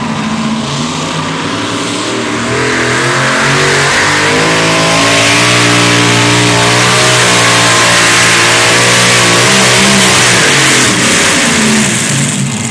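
Multi-engine modified pulling tractor running flat out during a pull, its engine note wavering in pitch and growing louder as it comes down the track. It eases off near the end.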